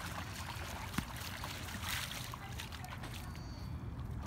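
Shallow water splashing and sloshing as feet and a dog's legs run through it, with a steady low rumble underneath and a sharp tap about a second in.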